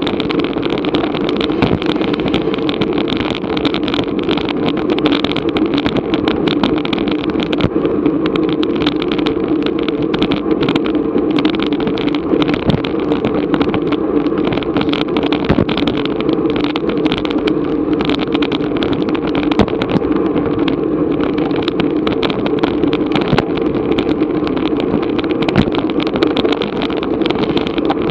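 Steady wind and road noise buffeting an action camera's microphone on a moving racing bicycle, with scattered small clicks.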